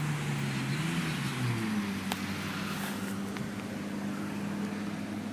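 A steady low mechanical hum whose pitch wavers during the first second and a half, then holds steady, with a single sharp click about two seconds in.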